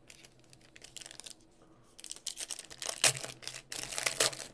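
Foil wrapper of a 2022 Prizm World Cup hobby card pack being torn open and crinkled by hand: sparse crackles at first, then a busy run of crinkling and tearing from about two seconds in, loudest just after three seconds.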